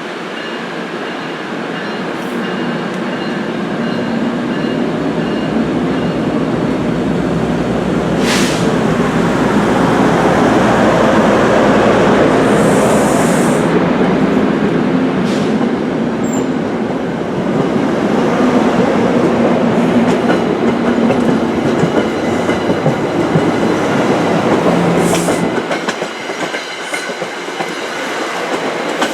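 New Jersey Transit commuter train running past at close range, its wheels clattering over the rails. The noise builds to its loudest around the middle, with a few sharp clicks and a brief hiss, then drops off sharply near the end.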